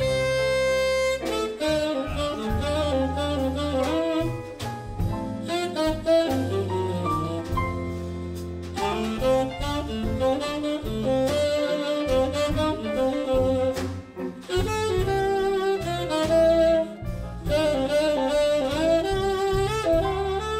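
Live blues band playing an instrumental break in a slow blues song: a lead instrument plays a melodic solo over bass and backing.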